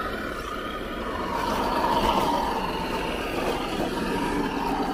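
Electric motor and geartrain of a 6x6 RC rock crawler whining as it climbs over rocks, the pitch shifting a little with the throttle.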